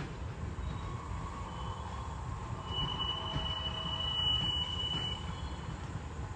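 Kintetsu Minami-Osaka Line train running through a sharp curve, with a steady low rumble. A high, steady wheel squeal comes in about three seconds in and stops about two seconds later: the wheel flanges squealing against the rails on the tight curve.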